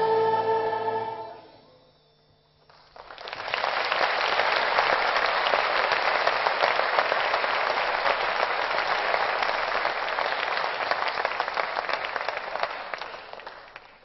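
A children's choir and orchestra end on a held final chord that dies away within the first two seconds. After a moment of silence, an audience bursts into sustained applause, which fades out near the end.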